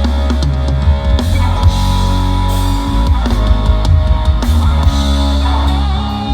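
Live rock band playing an instrumental passage: drum kit, electric guitar and bass guitar, with held chords over a steady beat.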